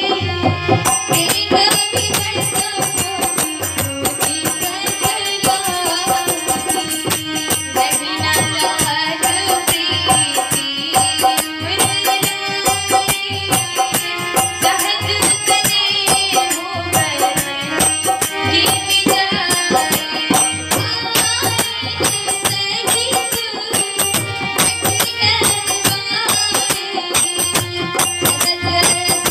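Devotional bhajan music: a harmonium playing a melody over a held drone, a dholak drum keeping a steady beat, and small brass hand cymbals (manjira) jingling in rhythm, coming in about half a second in.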